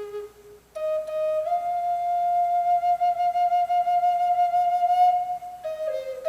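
Solo Native American flute, carved in the old rough style, playing a slow melody. A low note dies away, and after a short breath a higher note comes in, lifts slightly and is held for about four seconds before stepping down twice near the end.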